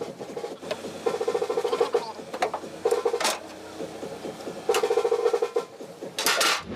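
Sped-up scrubbing of kitchen chimney parts: rapid, rhythmic rubbing strokes in several bursts, with a short hiss near the end.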